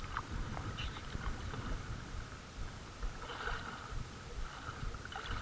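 Kayak paddle strokes dipping and splashing in slow-moving river water, with water washing along the kayak's hull and a low rumble underneath; a fuller splash comes about three and a half seconds in.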